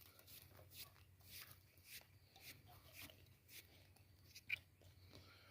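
Near silence, with faint scattered clicks and rustles about every half second and one brief high chirp about four and a half seconds in.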